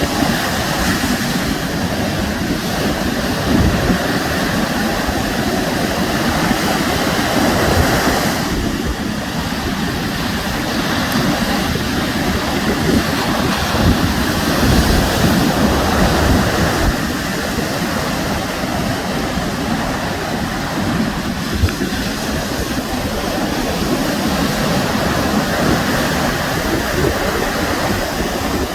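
Sea waves breaking and washing on the shore: a steady rushing noise that swells and eases now and then.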